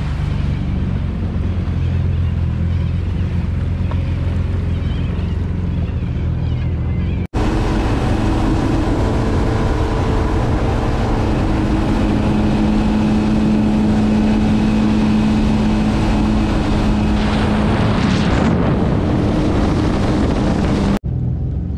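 Jet ski engines running at speed, with wind buffeting the microphone and water spray hissing. The sound cuts abruptly about seven seconds in to another stretch where a steady engine whine is the loudest thing, and cuts again near the end.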